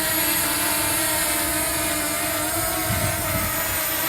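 DJI Mini 2 SE quadcopter drone in flight, its propellers and motors humming steadily at an even pitch.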